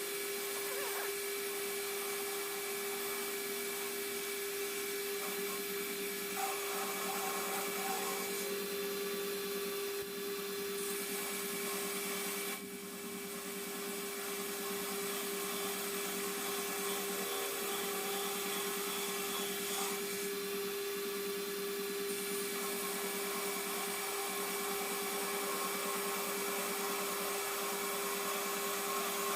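Metal lathe running with a steady whine and hiss, its pitch unchanging throughout.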